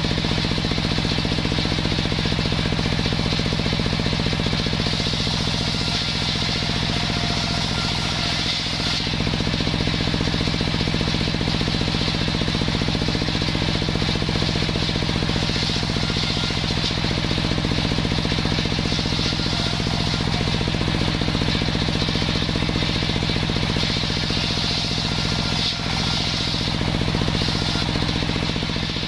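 Large table circular saw ripping sengon wood into battens: a steady low drive hum with a hissing, whining cutting noise that swells each time the blade goes through the board.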